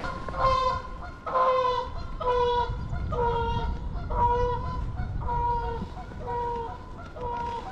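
A goose honking repeatedly: about eight even, pitched honks, roughly one a second.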